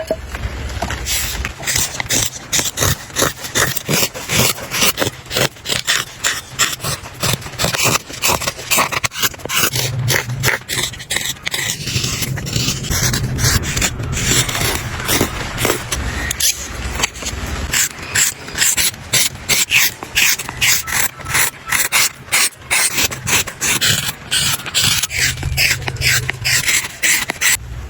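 Hand tools scraping and cutting wood in rapid, repeated strokes, several a second, as a wooden spoon is carved and shaped.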